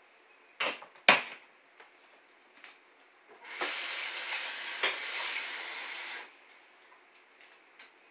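Two short knocks, then a kitchen tap running for about three seconds before being shut off, as water is drawn for the soup.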